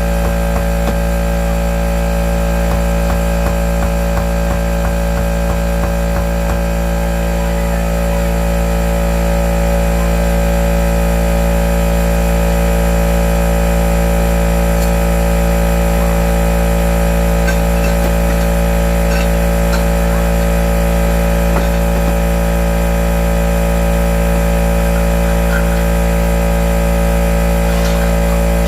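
A motor running steadily with a constant hum and low rumble, with a fast rattle of ticks over the first seven seconds or so.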